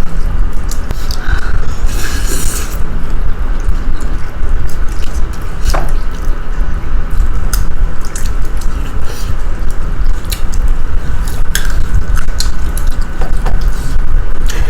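Eating sounds: scattered sharp clicks of cutlery against dishes, with chewing, over a steady low hum.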